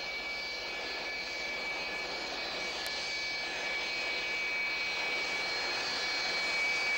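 Saab 37 Viggen jet fighter taxiing toward the listener, its Volvo RM8 turbofan giving a steady high whine over a rushing noise that slowly grows louder as the aircraft approaches.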